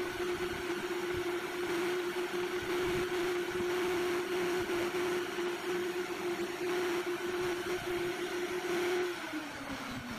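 Handheld electric power tool running steadily on a carved wooden furniture part, then switched off about nine seconds in, its pitch falling as the motor winds down.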